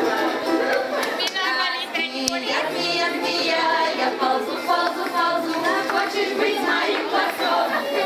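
A group of voices singing a Russian folk round-dance (khorovod) song, several voices overlapping.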